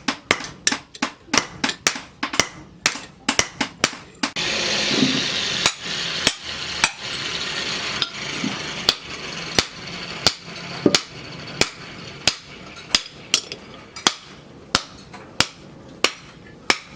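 Hammer blows on steel being forged for an axe head. The blows come quickly, about three a second, then settle to a steadier beat of about one and a half a second. A hiss comes in suddenly about four seconds in and fades away over the following seconds.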